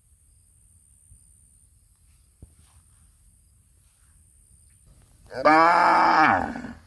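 A cow mooing once, a single long call about five seconds in, its pitch dropping as it ends.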